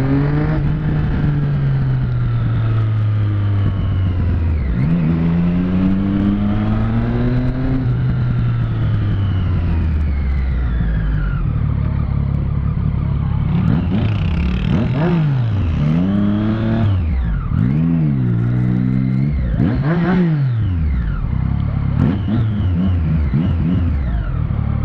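Motorcycle engine heard from on board, pulling up through the revs and easing off in the first half. In the second half it is blipped in several quick rev-ups and drops, revved for show.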